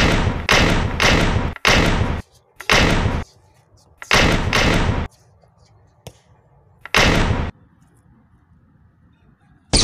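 A series of about eight loud gunshot sound effects, each a sudden bang with a short fading tail. Three come in quick succession, then one, a pair about four seconds in, and a last single bang about seven seconds in.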